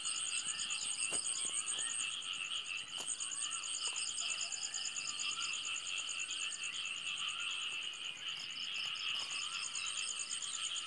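Night chorus of insects, a steady high trilling in several pitches, with short warbling calls from another animal repeating every second or so.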